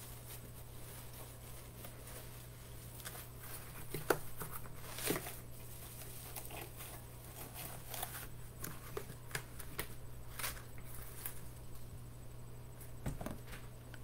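Handling noise as tumblers are moved about and set down: scattered light clicks and knocks with some rustling, with sharper knocks about four and five seconds in, over a steady low hum.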